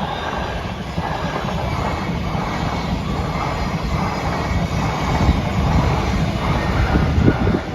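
Freight train passing over a level crossing, a steady rumble and rattle of wagons on the rails that drops off sharply near the end as the train clears.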